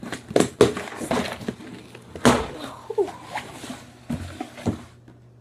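Cardboard shipping box being opened by hand: packing tape ripping off and the flaps pulled up, a run of sharp tearing strokes and cardboard scraping and rustling, loudest about two seconds in.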